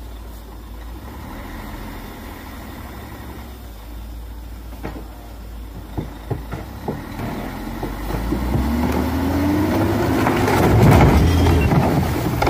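Loaded log truck's diesel engine running, then revving up under load with a rising pitch. A few sharp knocks come about five to seven seconds in, and near the end a loud crash as the truck tips over and its load of logs tumbles off.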